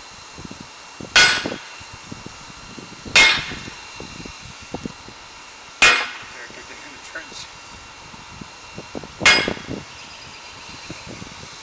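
Four heavy hammer blows on a red-hot greatsword blade lying on a round steel-block anvil, each a sharp strike with a short metallic ring, spaced a few seconds apart and knocking scale off the hot steel.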